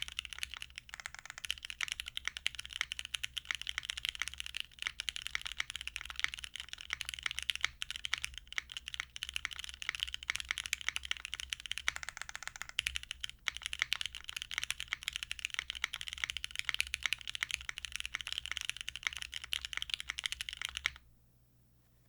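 Continuous fast typing on a jjw Moment 60% mechanical keyboard with stock Gateron UHMknown switches on a polypropylene plate, half-gasket mounted, with GMK keycaps; the keystrokes stop abruptly near the end.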